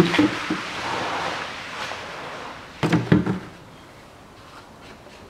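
Antifreeze pouring from a plastic coolant expansion tank into a plastic canister as the tank is drained; the splashing hiss fades away over the first two seconds or so. About three seconds in come a few hollow plastic knocks as the containers are handled.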